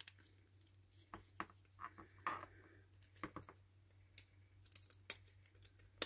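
Faint, irregular small clicks and taps of a computer mouse's circuit board being handled and pressed back into its plastic shell.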